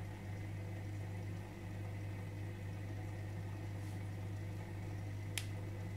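Steady low hum and faint bubbling from the aquarium's air-driven filter, with one sharp click about five and a half seconds in.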